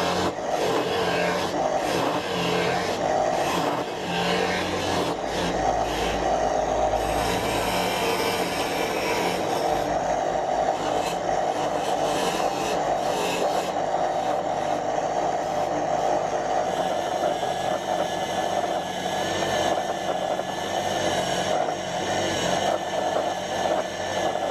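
Angle grinder running continuously under load, a steady, dense, loud mechanical noise.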